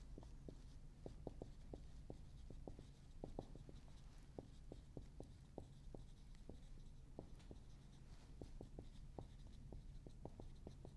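Faint marker pen writing on a whiteboard: short, irregular squeaks and taps of the pen strokes, a few a second.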